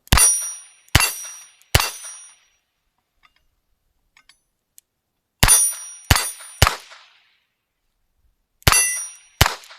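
Alfa Proj 2261 .22 LR revolver fired double-action eight times in three quick strings of three, three and two shots, each report with a bright metallic ring of steel plate targets being hit.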